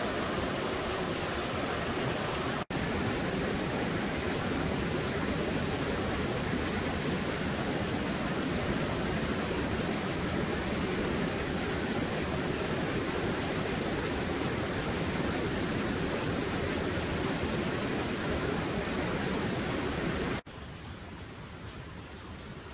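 Steady rush of flowing stream water pouring into a river pool. It cuts out for an instant about two and a half seconds in, and near the end drops to a quieter, softer flow.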